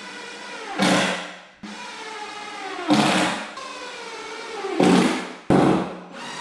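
Cordless drill run in three short bursts about two seconds apart, each falling in pitch as it stops, while drilling into the 2x4 pine leg frame.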